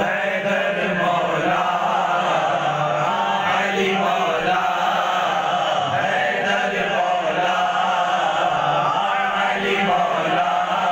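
Men's voices chanting an Urdu manqabat, devotional verse in praise of Ali, together as a group in a steady, unbroken chant.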